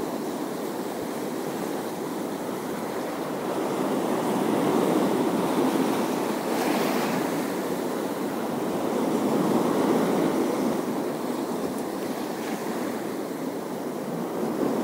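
Sea waves washing onto the shore, swelling and ebbing every few seconds, with wind on the microphone.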